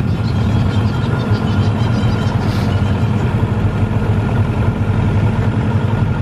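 Small boat's outboard motor running steadily under way, a continuous low drone.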